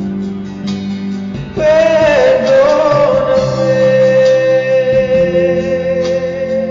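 Acoustic guitar accompaniment, and about one and a half seconds in a voice comes in on one long sung note that slides slightly down and is then held, with vibrato, for about five seconds.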